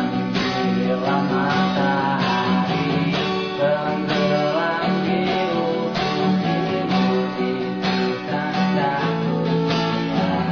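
Background music with a strummed guitar and a steady rhythm.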